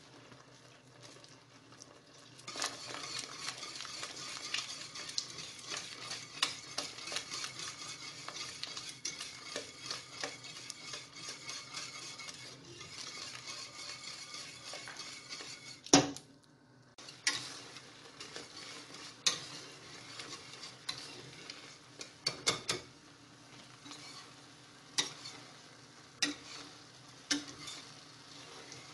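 A metal balloon whisk stirring a simmering chicken-and-onion filling in a stainless steel saucepan, with a faint sizzle under it. After a quiet start it becomes fast, steady scraping and clinking of wire on the pan. About halfway through there is one sharp metal knock, the loudest sound, and after it come slower, separate clinks as the filling thickens.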